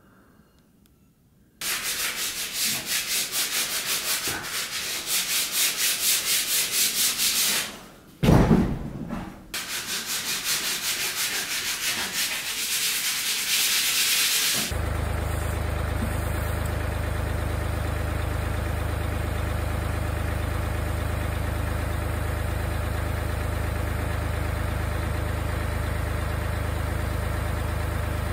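Power sander working on timber posts, its noise swelling and falling in quick pulses, with a short break and a loud knock about eight seconds in. About halfway through it gives way to a tractor engine running steadily.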